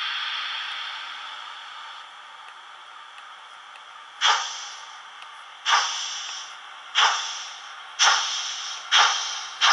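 Märklin HO model steam locomotive's sound decoder playing through its small speaker as the locomotive pulls away. A hiss of steam fades out, then about four seconds in the exhaust chuffs start slowly and come quicker and quicker.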